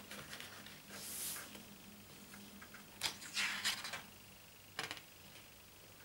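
Paper rustling as hands handle and smooth the pages of an open photobook: a few short swishes, the loudest about three seconds in starting with a sharp click, and a brief crackle near five seconds.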